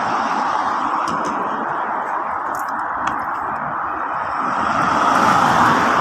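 Steady hiss of road traffic on a multi-lane road, swelling as a car passes about five seconds in.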